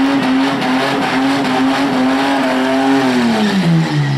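Holden Commodore V6 held at high revs in a burnout, tyres spinning over a steady screeching haze. Near the end the revs fall away towards idle.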